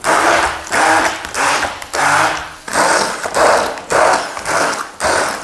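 Hand-held immersion blender whirring in repeated surges, about one a second, its pitch wavering, as it chops crumbled tofu in soy milk and olive oil.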